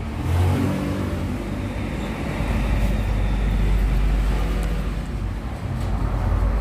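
Steady low mechanical rumble like a running motor, growing stronger about two and a half seconds in.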